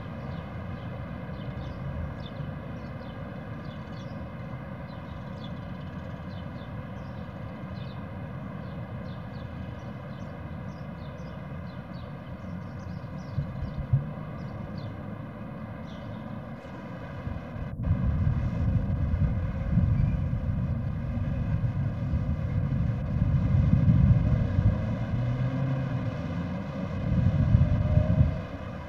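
Steady low outdoor rumble with faint, short high chirps through the first half. After a sudden break about 18 seconds in, the rumble is louder.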